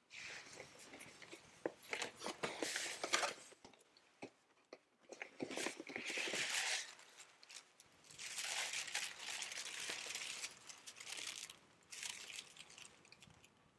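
Gift wrapping and tissue paper tearing and crinkling as a present is unwrapped, in several stretches of rustling separated by short pauses.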